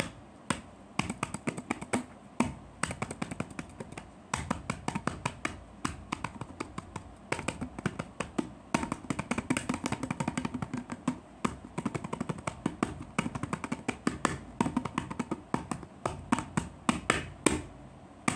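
A single can played with the hands as a drum kit: quick, uneven strikes, several a second, some with a fuller low knock and some sharper. The drumming stops just before the end.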